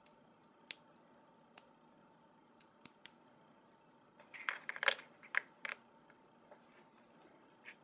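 Small LEGO minifigure plastic pieces being handled and clicked together: scattered sharp clicks, with a denser flurry of clicks about four to six seconds in.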